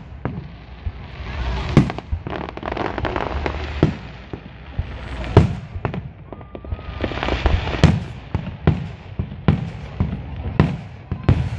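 Aerial fireworks shells launching and bursting one after another: about ten sharp booms, irregularly spaced, with stretches of hiss between them.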